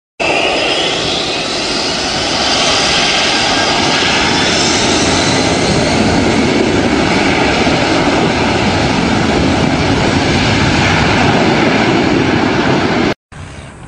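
Boeing 747 turbofan jet engines running at high power: a loud, steady roar with a high whine that rises in pitch near the start. It cuts off suddenly about a second before the end.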